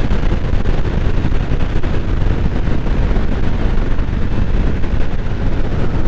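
Indian Chief Bobber's Thunderstroke 116 V-twin running steadily at cruising speed, mixed with wind rushing over the microphone.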